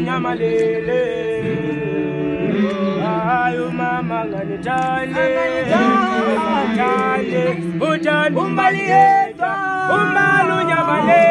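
A group of voices singing a gwijo, a South African a cappella chant-song, with a higher melodic line moving over sustained lower voices.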